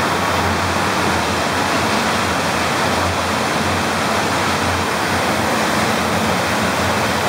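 Steady rush of flowing water at a tube water slide's start, an even, unbroken roar of water-park water with no single events.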